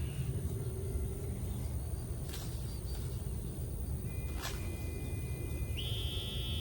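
Two sharp snaps about two seconds apart, typical of ears of corn being snapped off their stalks, over a steady low rumble of wind and handling noise. A thin high steady tone comes in near the end.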